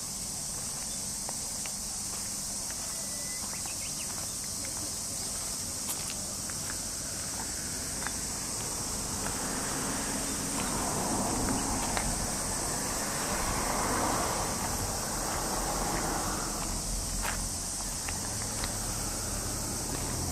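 Steady high-pitched chirring of insects such as crickets, with a faint low hum underneath, a few light clicks, and a swell of noise from about nine to seventeen seconds in, like a vehicle passing.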